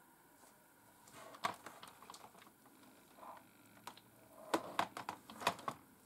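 Cherry G83-6105 membrane keyboard's plastic case and keycaps being handled, the keyboard lifted and set down on the desk: light scattered clicks from about a second and a half in, then a denser run of louder clicks and knocks near the end.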